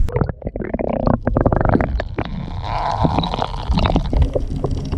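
Muffled underwater gurgling and churning of water around a submerged camera microphone, with many scattered small clicks; the treble drops out suddenly as it goes under.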